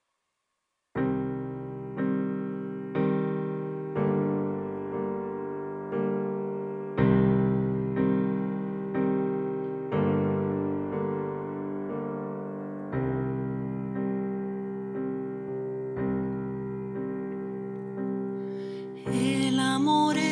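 Piano chords played slowly, struck about once a second, each one ringing and fading, as a song's introduction. About a second before the end, a woman's singing voice comes in over the chords.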